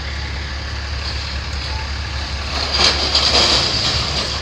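Heavy diesel demolition equipment running with a steady low drone, with a louder burst of rough, scraping noise about three seconds in.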